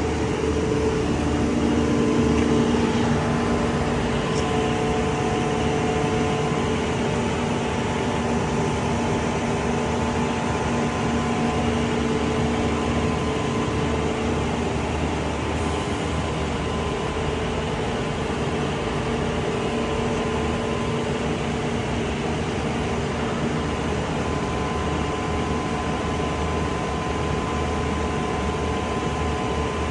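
Engine and hydraulic pump of a Horyong PE700 66 m truck-mounted ladder lift running steadily: a continuous drone with faint whining tones that come and go.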